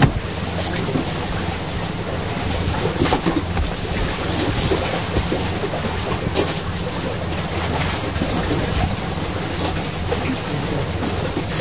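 Boat engine running steadily under wind and sea noise, with a few short knocks from handling on the deck.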